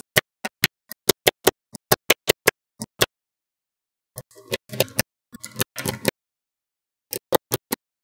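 Small magnetic balls clicking sharply as clusters snap onto a magnetic-ball wall: a quick run of separate clicks for about three seconds, then about two seconds of denser rattling clatter near the middle, and a few more clicks near the end.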